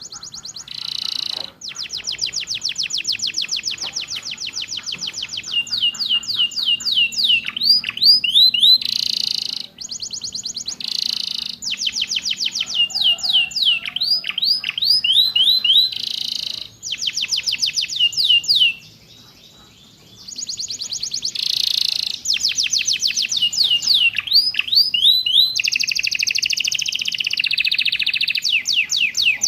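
Domestic canary singing a long, fast song of rapid trills and runs of down-sliding notes, filled in with copied ciblek and prenjak phrases. It breaks off briefly about two-thirds of the way through, and a buzzy, wavering phrase comes near the end.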